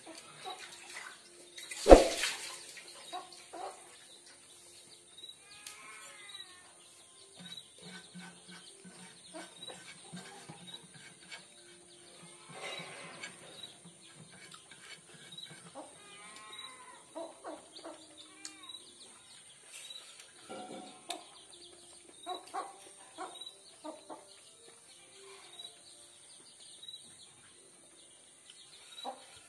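Soft eating sounds of fingers scraping and picking food from a metal plate, with a sharp knock about two seconds in. Short bird calls sound faintly in the background several times.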